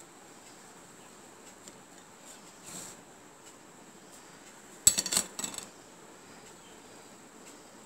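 Metal kitchen knife cutting a baked cake and knocking against the pan: a soft scrape about three seconds in, then a quick cluster of sharp clinks a little before five seconds in.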